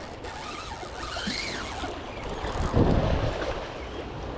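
Sea waves washing against the boulders of a rock jetty, with wind buffeting the microphone and a louder rush about three seconds in.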